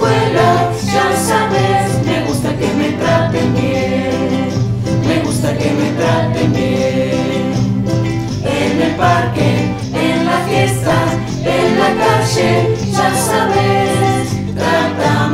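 Virtual youth choir singing a song together, many young voices recorded separately at home and mixed into one chorus over a steady low accompaniment.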